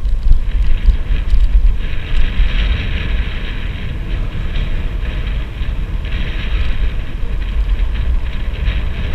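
Wind buffeting the microphone as a Rans Seavo tandem bicycle rolls along a paved street, with a steady hiss of tyres and drivetrain and a few faint ticks.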